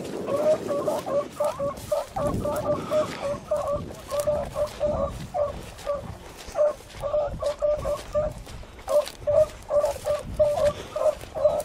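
Beagle hounds baying in a steady run of short, repeated notes as they run a rabbit's scent line.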